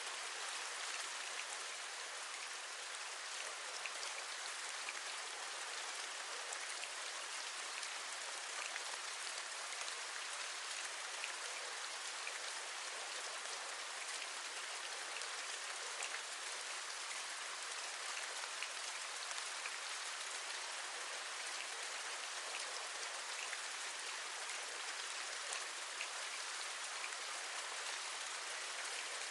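Steady rain: an even hiss dotted with many small drop ticks, with little low end and no change in level.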